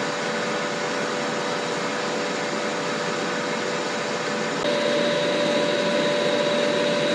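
Ninja Foodi Smart XL Grill's fan running steadily while the grill preheats, a whir with a steady whine; about two-thirds of the way in the whine steps a little higher and louder.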